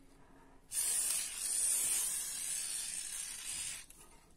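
Aerosol glitter spray hissing in one steady burst of about three seconds, starting under a second in and stopping shortly before the end.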